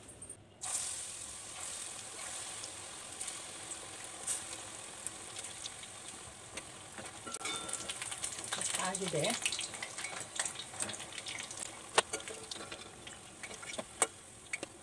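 Battered capsicum slices sizzling in hot oil in a stainless steel kadai; the sizzling starts abruptly under a second in as the pieces go into the oil. A metal spoon turning the fritters clicks and scrapes against the pan throughout, with a couple of sharp knocks near the end.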